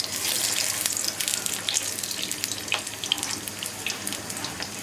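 Oil sizzling and crackling in a pan as a paratha fries on medium heat, a steady high hiss dotted with small pops that starts up suddenly at the outset.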